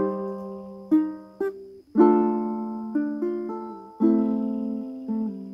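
Ukulele playing an instrumental passage: chords struck about once a second, each ringing and fading, with a few short single notes picked in between.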